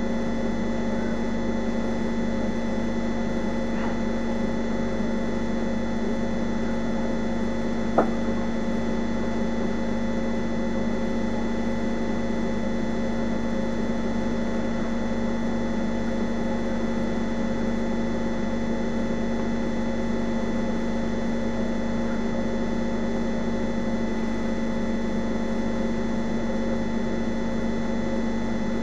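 Steady electrical or machine hum made of several constant tones over a low hiss, with a single sharp click about eight seconds in. No bird calls are heard.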